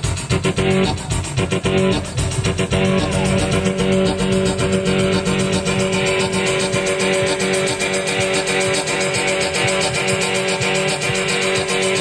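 Dance music with a steady beat, played by DJs from CDJ decks over a party sound system.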